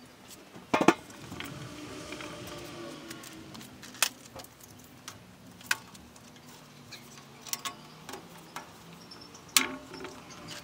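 Steel lid of a drum steam wax melter being set on and worked down over the drum's rim: a handful of sharp metal knocks and clinks, the loudest about a second in, followed by a brief ringing of the drum.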